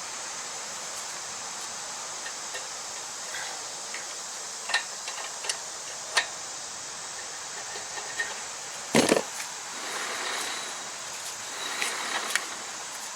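Hand tools clicking and tapping against metal while loosening and adjusting the ATV's rear brake, with one louder knock about nine seconds in and brief scraping after it, over a steady hiss.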